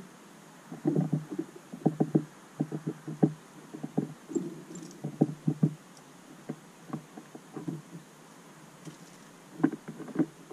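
Finches feeding at a tube seed feeder: irregular knocks and taps of beaks and feet on the feeder, coming in quick clusters with short pauses between, a loud run of them near the end.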